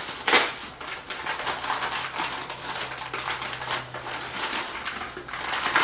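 Rustling and light clicking as a graphics card is handled and readied for installation.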